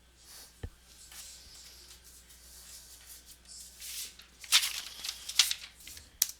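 Packaging being handled on a table: soft rustling and crinkling, with a light knock about half a second in and several sharp crinkling or tearing bursts in the second half.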